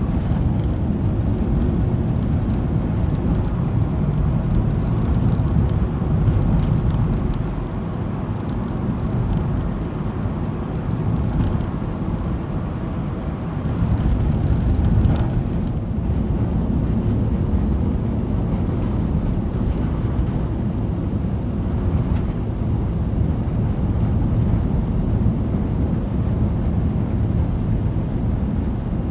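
Ford Transit van driving, heard from inside the cab: a steady low engine and road rumble with the heater blower running hard, dipping slightly a third of the way in.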